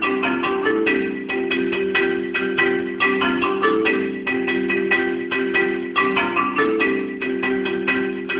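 Solo marimba playing a steady run of mallet strokes, about five a second, with sustained low notes ringing under the higher ones.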